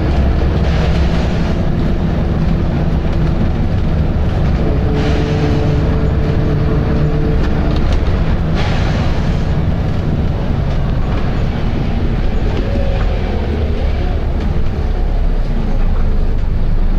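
Volvo B7RLE bus's diesel engine running under way, heard from on board as a loud, steady rumble with a whine from the driveline that comes and goes. Short bursts of air hiss break in a few times, near the start, about five seconds in and about eight and a half seconds in.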